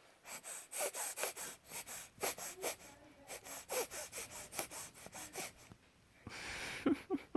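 Quick, snuffly breaths through a blocked nose, about three or four a second, some with faint squeaks, and one longer, noisier breath about six seconds in: congested breathing with the sniffles.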